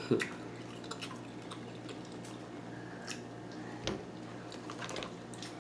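Scattered small wet clicks and smacks of people eating seafood with their hands: chewing, lip smacks and shells being handled, one slightly louder click about four seconds in.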